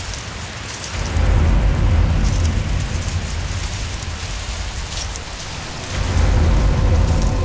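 Low rumbling swells over a steady hiss, the rumble rising twice, about a second in and again about six seconds in: a dramatic suspense sound effect from the drama's soundtrack.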